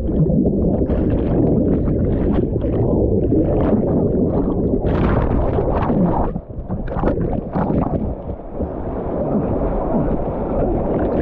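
Loud rushing whitewater churning around a kayak, with water and wind buffeting the camera microphone. The roar drops briefly about six seconds in, then comes back.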